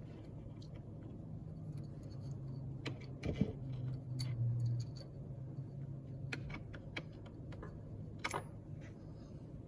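Light clicks and small rattles of hands handling an electric scooter's brake lever and feeding its wire and plug through the handlebar, over a faint low hum.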